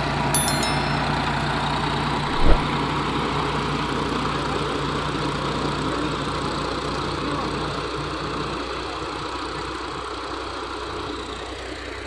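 John Deere 5075E tractor's diesel engine running steadily in the field, with a single short thump about two and a half seconds in. The engine sound grows fainter over the last few seconds.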